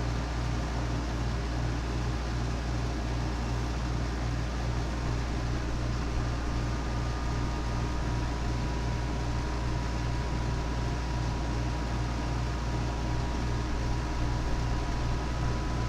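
CB radio receiver hissing with open static while scanning, with no station coming through. A low hum pulses about twice a second under the hiss, and two faint steady whistle tones sit in the background.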